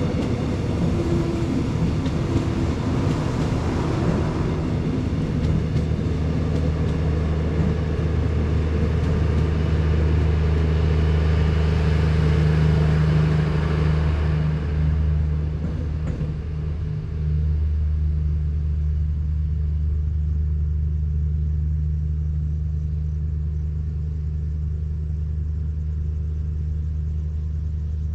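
A diesel train's engine running with a steady low drone, over the rush and rattle of wheels on the track. The track noise dies away about fifteen seconds in, leaving the engine hum.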